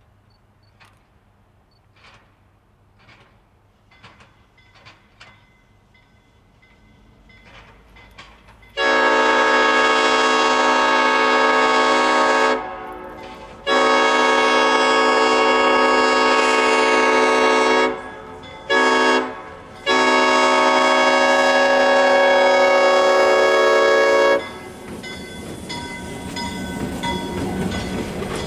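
Horn of Maryland and Delaware Railroad CF7 locomotive #2628 blowing for a grade crossing: two long blasts, a short one and a final long one. The locomotive's diesel engine and rolling wheels then grow louder as it reaches the crossing.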